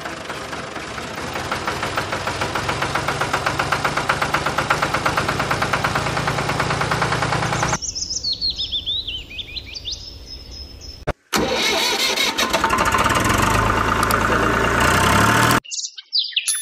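A motor-vehicle engine, most likely a tractor engine, runs with a rapid even pulsing and cuts off abruptly, followed by bird chirps. Then after a sudden break the engine is heard again, its pitch rising as it revs, and stops abruptly, with a high repeating bird trill near the end. The hard cuts are those of edited-in sound effects.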